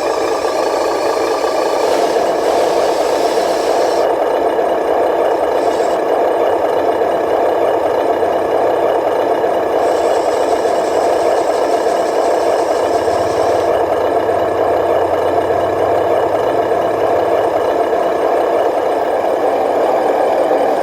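A radio-controlled model construction vehicle running: a steady mechanical drone with a light rattle.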